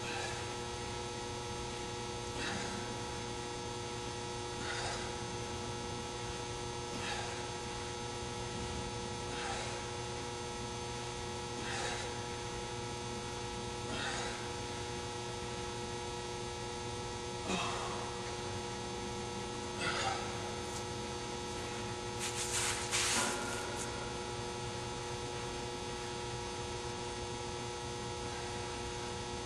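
Steady electrical hum, with a faint swish about every two and a half seconds as a golf club is swung back and forth in a continuous warm-up swing drill. A louder brief rustle comes about three-quarters of the way through.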